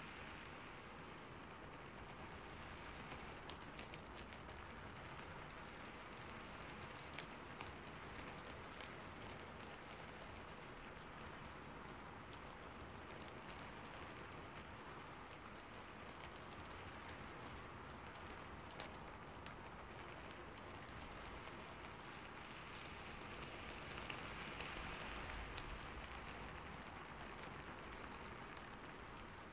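A faint, steady hiss like rain, with a few soft ticks.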